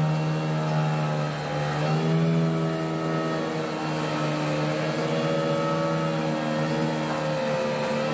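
Diesel engines and hydraulics of heavy excavators running on a construction site, one with an earth auger drilling into the ground. The steady drone dips and rises in pitch a few times, around two and five seconds in.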